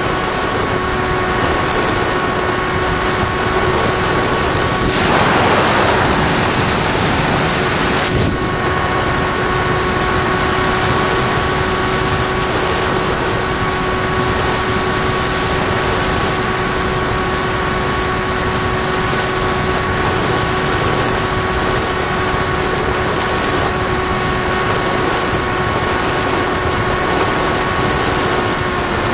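Electric motor and propeller of a Firstar 2000 FPV plane, heard through its onboard camera in flight, running at a steady whine with wind rushing over the airframe. About five seconds in, a louder rush of wind lasts about three seconds, then the steady motor whine carries on.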